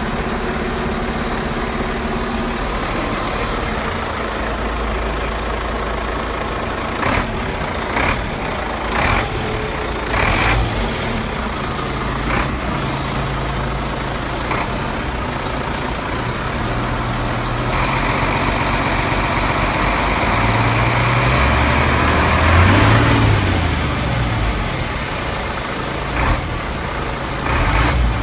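Iveco Stralis 560's 13-litre Cursor 13 six-cylinder diesel, with 640,000 km on it, running at idle with several short hisses. About two-thirds of the way through it is revved for a few seconds: the turbocharger whistle climbs to a high pitch, peaks, then falls away as the revs drop.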